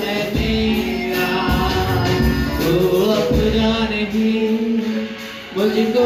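Live Hindi Christian worship song: voices singing over instrumental backing with low drum strokes.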